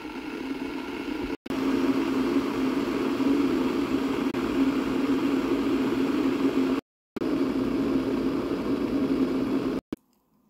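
A steady mechanical hum, like a motor or appliance running, that swells up at the start, drops out abruptly twice for a moment, and cuts off suddenly near the end.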